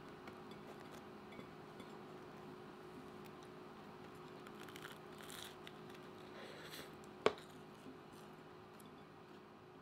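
Faint crunching of a bite of pizza toast being taken and chewed, then a single sharp clink about seven seconds in as the slice is set back down on a ceramic plate, over a steady low hum.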